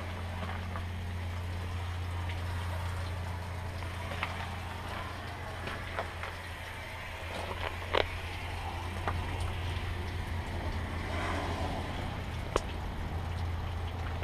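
1995 International 4800 dump truck engine idling steadily as a low, even hum, with a few sharp clicks over it.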